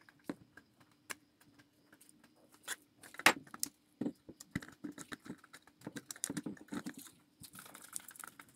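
Small plastic parts and circuit board of an LED bulb being handled and fitted together with tweezers and a small tool: scattered light clicks and taps, the sharpest about three seconds in.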